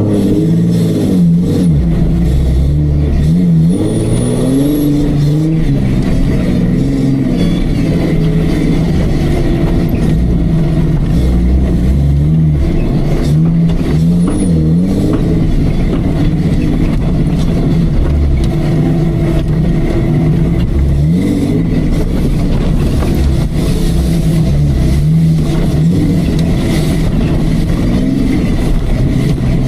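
Off-road 4x4 Jeep's engine revving up and down under load, its pitch climbing and falling again every few seconds over a steady low rumble.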